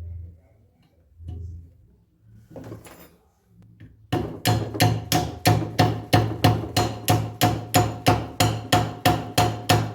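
Small hammer striking a rivet to peen it over and fasten a brake lining to a drum-brake shoe. It strikes about three times a second with a metallic ring, starting about four seconds in.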